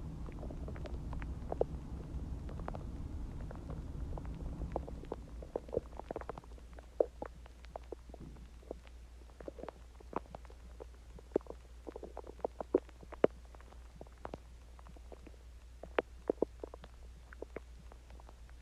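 A human stomach growling while it digests a meal of Chinese food and water. It starts with a low rumble for about five seconds, then turns into a string of short, irregular gurgles and pops.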